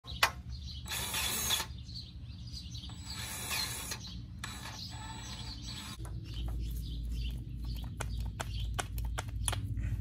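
DeWalt 20V cordless grease gun running in short bursts as grease is pumped into the pivot fittings of a skid steer's attachment plate. About six seconds in, a steady low hum and rapid irregular clicking take over.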